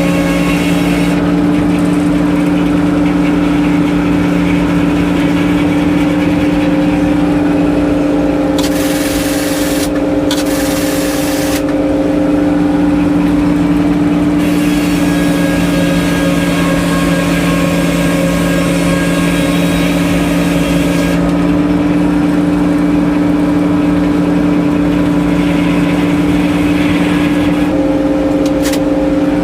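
Sawmill engine running at a steady speed, a loud, constant mechanical hum with two strong steady tones.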